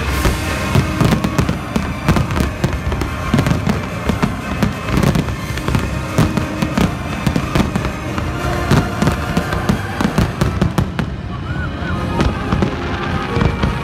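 Aerial fireworks display in full barrage: shells bursting in a rapid, unbroken run of bangs and crackles, several a second.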